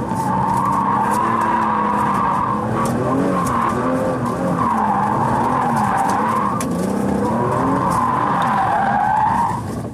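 E46 BMW M3's straight-six engine revving up and down as the throttle is prodded through a power slide, with the tyres squealing in several long, wavering stretches. Heard from inside the car.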